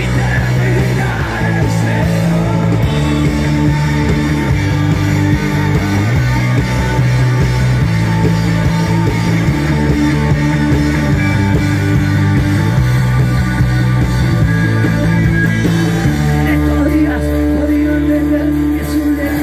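Live rock band playing a punk-rock song: electric guitars, bass guitar and drums, with singing. About three seconds before the end the bass settles on one held low note.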